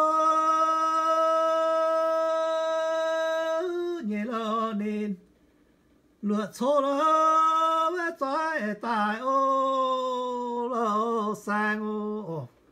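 A man singing an unaccompanied traditional Mien (Yao) song in two long phrases: the first opens on a note held steady for about four seconds, then breaks into wavering turns; after a pause of about a second, the second phrase ends on a falling note.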